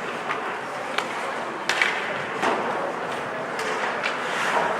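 Ice hockey play in an arena: scattered sharp clacks and knocks of sticks and puck, with skate noise, over a steady murmur of crowd and rink noise.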